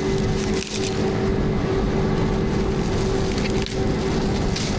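Heavy farm machinery running steadily: a constant engine drone and hum with a crackling, crunching texture, dipping briefly twice.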